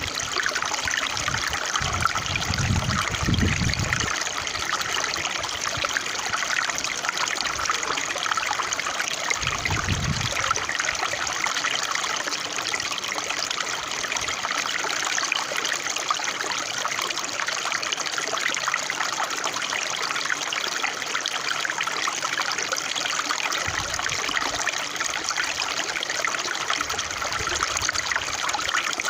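Water flowing and trickling steadily, like a small stream over stones, with a few brief low rumbles in the first third.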